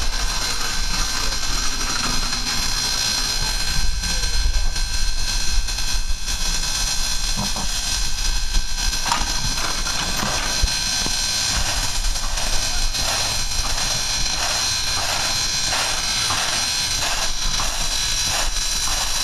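Steam locomotive standing with steam hissing steadily over a low rumble, with a run of light, repeated knocks in the second half.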